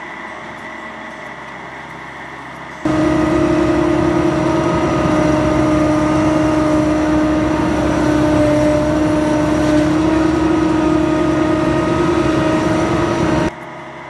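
Bobcat skid-steer loader's engine running steadily as it holds up a heavy load, with a steady hum. It is moderate at first, turns much louder and closer about three seconds in, and drops back just before the end.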